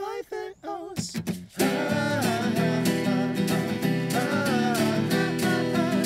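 Acoustic guitar strummed with two male voices singing in German. For about the first second and a half the strumming drops to a sparse break under the voices, then comes back in full with a steady strum.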